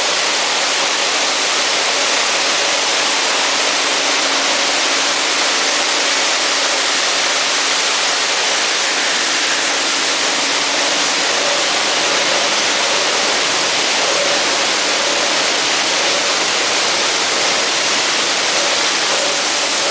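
PP/PE plastic film washing and recycling line running: a steady, loud rush like flowing water, with a faint machine hum underneath.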